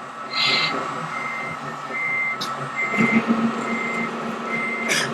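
Reversing beeper on an RC model truck, giving short beeps about once a second. A low steady drone joins about three seconds in.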